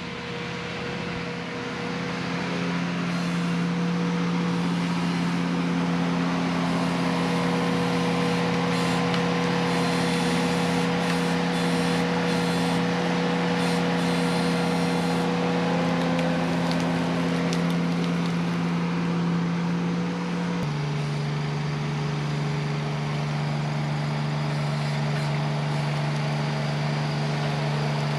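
Ventrac compact tractor engine running steadily at high throttle. About twenty seconds in it drops to a lower, steady engine speed.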